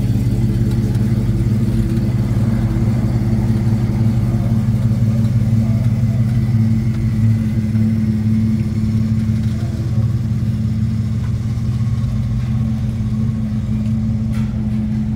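Dodge Challenger's 392 HEMI V8 running steadily, a low even engine and exhaust drone.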